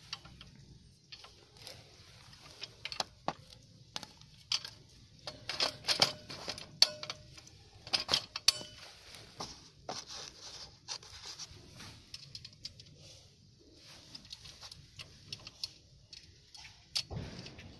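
Irregular clicks, clinks and scrapes of small metal parts being handled on a steel tricycle frame, busiest in the middle, with a cloth sleeve brushing against the microphone near the end.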